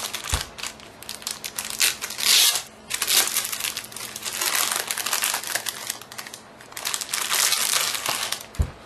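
Clear plastic bag crinkling and crackling in repeated bursts as it is pulled off a metal graphics-card waterblock, loudest about two seconds in. A couple of low thumps come as the block is handled, one at the start and one near the end.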